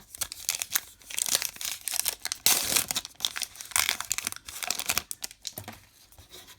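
A baseball card pack wrapper being torn open and crinkled: a dense, irregular run of crackles and rips that thins out after about five seconds.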